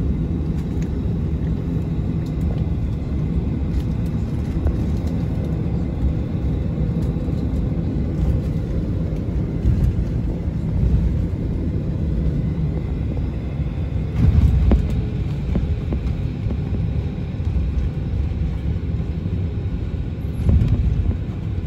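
Cabin rumble of a Boeing 737-700 taxiing on the ground after landing, its CFM56-7B engines at idle. The rumble swells briefly louder about two-thirds through and again near the end.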